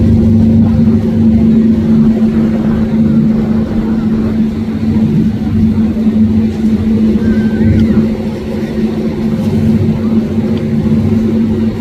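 Twin outboard motors running hard with a steady drone as a center-console boat powers through breaking waves, over the rush and splash of water against the hull.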